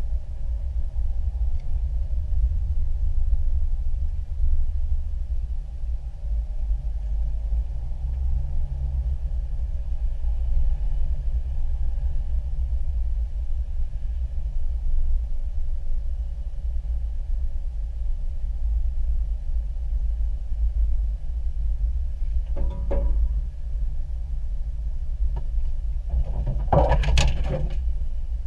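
Off-road vehicle driving slowly on a dirt trail, heard from inside the cab: a steady low rumble of engine and tyres, with two short louder noises near the end.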